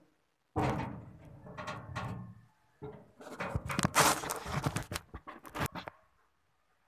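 Close handling noise from a phone camera being picked up and carried: a sudden loud rub that fades, then a run of knocks, clicks and scrapes that stops about a second before the end.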